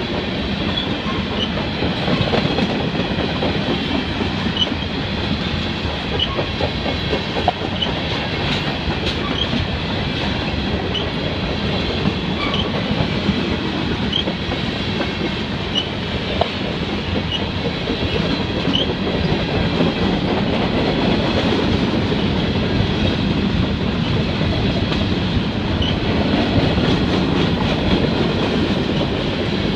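Freight train cars, covered hoppers and tank cars, rolling steadily past close by: a continuous rumble of steel wheels on rail with clicking over the rail joints. Short high squeaks recur about once a second through the first two-thirds.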